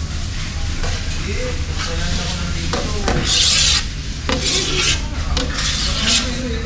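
A metal scoop scraping against the inside of a large stainless-steel mixing bowl as thick batter is scooped out, in several short scrapes, the loudest about three seconds in, over a steady low hum.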